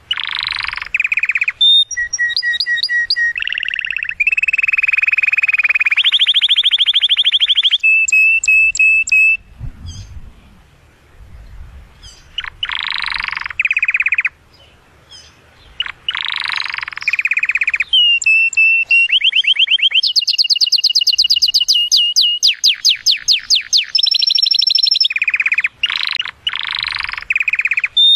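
Male domestic canary singing an excited courtship song to stimulate a female to mate: long phrases of fast rolled trills and rapidly repeated notes, some sweeping in pitch, with two short pauses in the middle.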